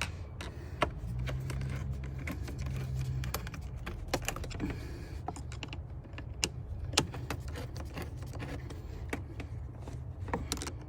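Flathead screwdriver loosening a worm-drive hose clamp on a truck's air intake tube: a run of irregular small clicks and scrapes as the clamp screw turns. A low hum sounds briefly in the first few seconds.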